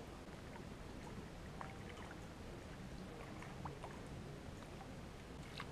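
Quiet lakeside background: a faint, steady hiss of water and air, with a few faint short high sounds scattered through it.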